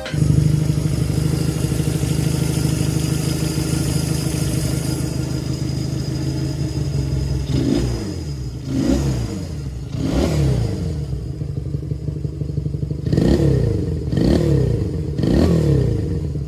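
Honda Benly C92's 125 cc parallel-twin engine idling steadily, then blipped about six times, each rev rising and falling back to idle, over the second half.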